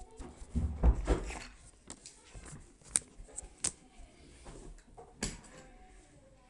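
Cardboard box being handled: a dull knock about a second in, then a few sharp scattered taps and clicks.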